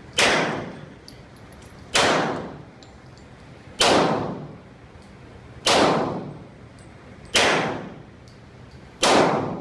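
Glock 22 pistol firing .40 S&W in slow, steady aimed fire: six shots about two seconds apart, each a sharp crack with a short ringing tail.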